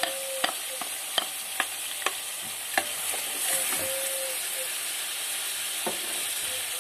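Chicken pieces sizzling in hot oil in a metal pot, with a steady hiss, as ginger-garlic paste is stirred in with a wooden spatula. Sharp knocks of the spatula and plate against the pot come about twice a second over the first three seconds, with one more near the end.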